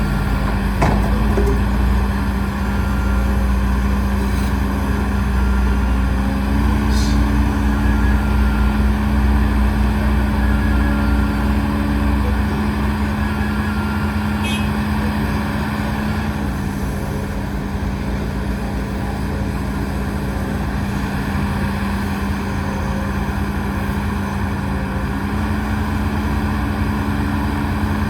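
Heavy diesel earthmoving machinery running steadily: a constant engine drone whose note steps up about six seconds in, drops back around the middle, and rises again near the end as the engine speed changes with the work.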